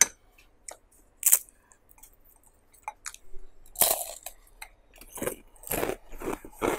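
Crisp deep-fried fritter cracking as it is broken apart by hand: a sharp snap, scattered crackles, then a quicker run of short crunches near the end.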